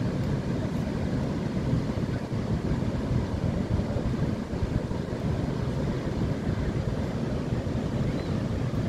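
Wind buffeting the microphone as a steady low rumble, over the noise of surf breaking on the sea.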